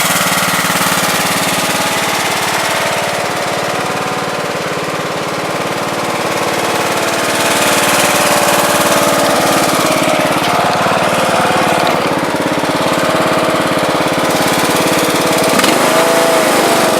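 Riding lawn tractor's small engine running steadily while the tractor is driven, with a brief rise and fall in engine speed near the end.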